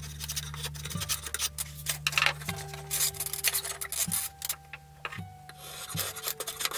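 Hand rasp scraping along a walnut hatchet handle blank, shaping the wood in a run of scratchy rubbing strokes. The strokes pause for a couple of seconds about two-thirds of the way through, then start again near the end. Soft, sustained background music tones sit underneath.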